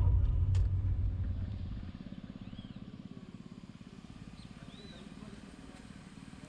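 An engine running with a loud low rumble that drops about two seconds in to a quieter, even, rapid putter. A few short high bird chirps sound above it.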